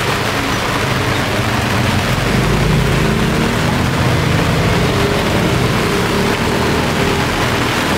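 Heavy rain falling, a loud, steady hiss, with a low hum underneath.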